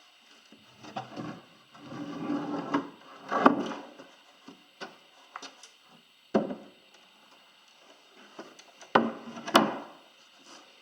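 The boat's top cover being taken off: scraping for a couple of seconds, then several sharp knocks as it is handled.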